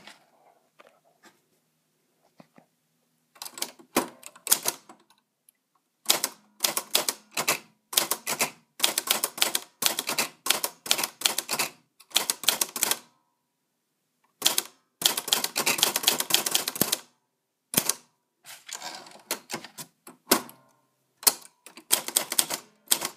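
Typewriter keys striking in quick runs of clatter, broken by short pauses, starting after about three seconds of near quiet.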